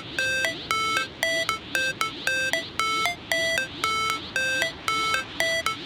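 Electronic vehicle siren sounding a fast, repeating multi-tone pattern of beeping notes that step between a few pitches and repeat roughly every half second, cutting off abruptly near the end.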